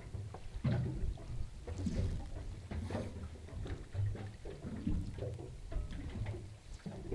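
Wind rumbling on the microphone, with water lapping and splashing against a small boat's hull.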